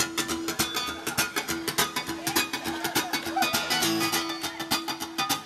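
Live music: a guitar-led instrumental passage with a quick, even beat and a held note underneath, with no singing.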